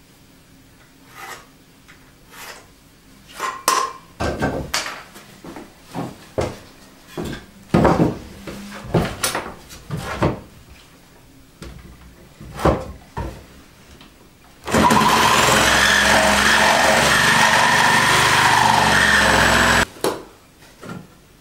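Knocks and clatter of wooden boards and tools being handled, then about two-thirds of the way in an electric jigsaw cuts a wooden floorboard for about five seconds, loud and steady, and stops suddenly.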